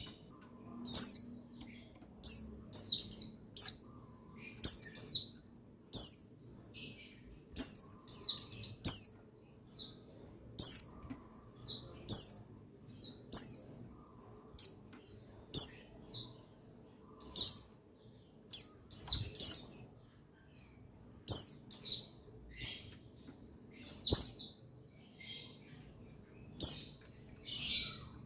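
Buxtoni white-eye (pleci) giving short, high chirps, singly and in quick clusters of two or three, repeated every second or two.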